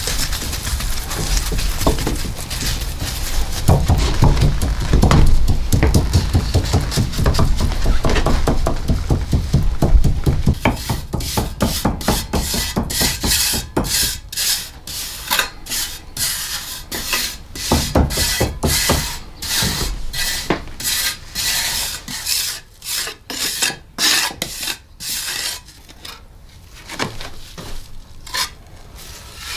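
Repeated hand rasping or scraping strokes, about two a second, starting about ten seconds in and growing sparser toward the end. Wind rumbles on the microphone through the first half.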